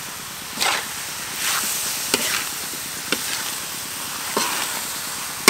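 Chicken pieces sizzling as they are stir-fried in a large metal wok, with a metal spatula scraping and knocking against the pan about once a second.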